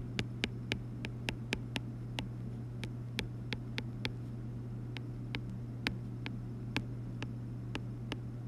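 Stylus tip tapping on an iPad's glass screen while handwriting, giving an irregular series of sharp little taps, a couple each second. A steady low electrical hum runs underneath.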